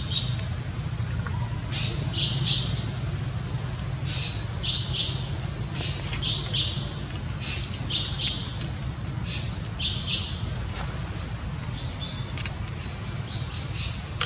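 A bird singing a short phrase of high chirps over and over, about every one to two seconds, over a steady low hum.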